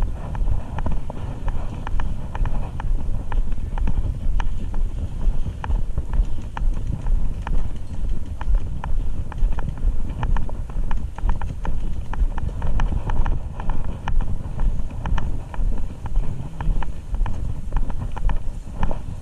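Steady walking footsteps, about two a second, heard close up from a body-worn camera, with light clicks of carried gear.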